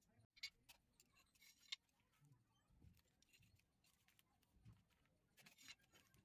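Near silence, with a few faint clicks and scrapes as a ceramic tile strip is handled, measured with a tape measure and marked with a pen.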